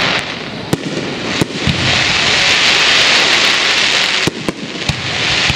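Aerial fireworks: a few sharp bangs of shells bursting, then a dense, steady crackle of crackling stars that runs for about two seconds, breaks off with another bang and starts again near the end.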